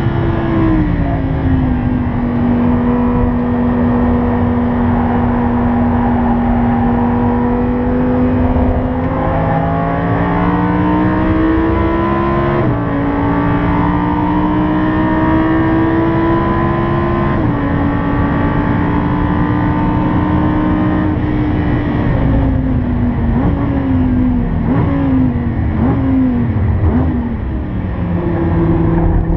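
Lamborghini Huracán's V10 engine heard from inside the cabin at speed on track: a steady engine note that steps in pitch with the gear changes. About three-quarters through, the car brakes hard and the engine falls in pitch with several quick throttle blips as it downshifts, then rises again near the end as it accelerates.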